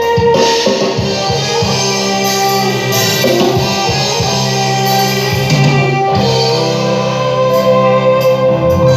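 Music with sustained melody lines over a steady bass, played loud through a line array PA system during a sound check.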